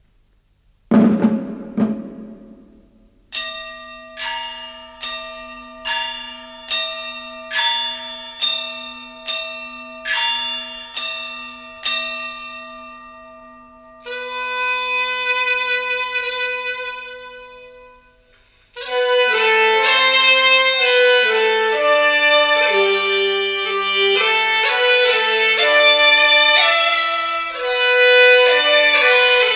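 Instrumental music. A low struck note rings out about a second in, then single struck notes fall about once a second over a held drone. After a long sustained note, a fuller melody starts at about 19 seconds.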